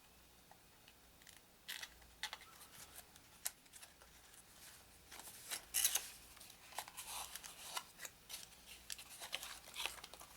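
A boxed card-game expansion pack being opened by hand: irregular scratching, clicking and rustling of its wrapper and cardboard packaging, busier in the second half with the loudest scrape around the middle.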